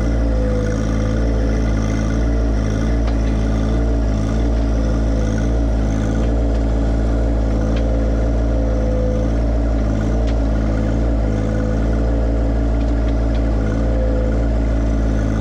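John Deere 1025R compact tractor's three-cylinder diesel engine running steadily at constant speed while the front loader raises and curls pallet forks dug into the soil.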